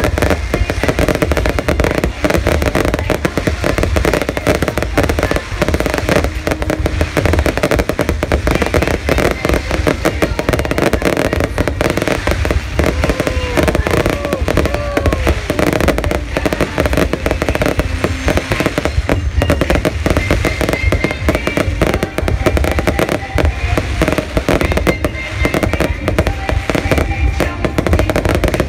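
Fireworks display going off continuously: rapid, overlapping bangs and crackles over a deep, steady booming rumble, with crowd voices and music mixed underneath.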